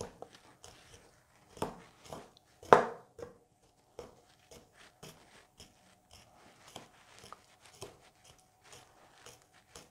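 Kitchen knife stabbed over and over into a large raw beef sirloin joint to pierce holes for marinade: a string of faint, uneven short stabs and clicks, two of them louder at about two and three seconds in.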